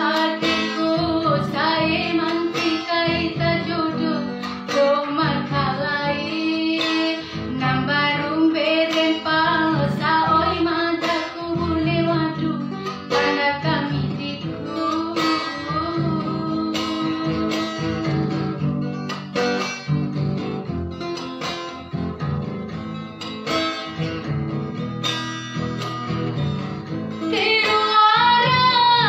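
A woman singing a song, accompanied by a strummed acoustic guitar.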